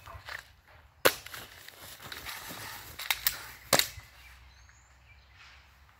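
Airsoft Glock pistol firing: one sharp shot about a second in, then three more in quick succession around three seconds in.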